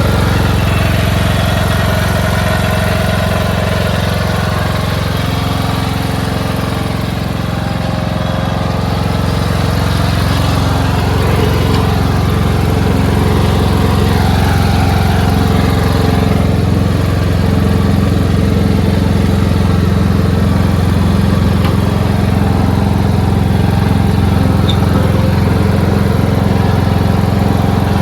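Craftsman LT2500 lawn tractor's single engine running steadily as the tractor is driven.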